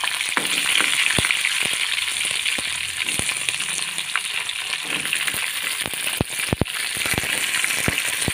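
Stuffed brinjals frying in hot oil with mustard seeds in a metal kadhai: a steady sizzle with scattered sharp clicks and taps from the metal spatula turning them. The loudest clicks come in a cluster about six seconds in.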